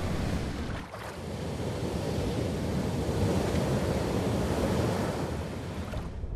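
Sea waves breaking and rushing, heard from water level: a dense, steady noise that briefly dips about a second in, and whose hiss drops away abruptly near the end.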